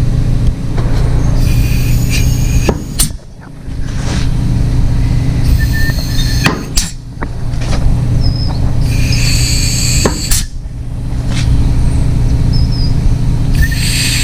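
Rebuilt hydraulic cylinder being cycled in and out with compressed air: several spells of air hissing, each ending in a sharp knock as the piston reaches the end of its stroke, over a steady low hum.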